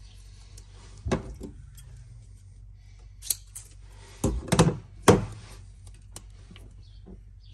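Hands at work with a roll of tape: tape being pulled off the roll and pressed onto the metal footwell. Among the rustles are a few sharp knocks and thuds, the loudest about four to five seconds in.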